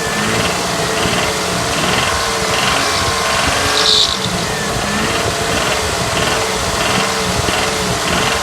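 Mitsubishi 6G74 3.5-litre V6 engine running with its speed wavering up and down, carrying a knock that appears off idle around 2000 rpm; the owner suspects a spun bearing shell or a knocking connecting rod. A short sharp high-pitched sound cuts in about four seconds in.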